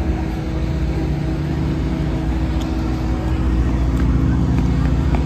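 A steady low mechanical hum with a constant drone, slightly louder in the last couple of seconds.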